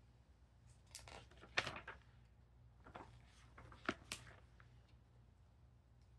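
Small plastic building-block pieces being handled: two spells of light clicking and rattling, with a sharp click about a second and a half in and another near four seconds.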